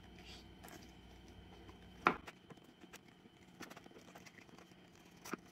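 Rolling pin pressing a slice of bread flat on a plastic cutting board: quiet rolling with a few light knocks, the sharpest about two seconds in.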